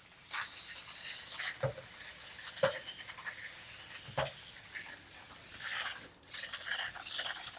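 A small battery-powered RC stunt truck running on its own in demo mode, making a rattling, scrabbling noise with three sharp knocks as it spins and tumbles.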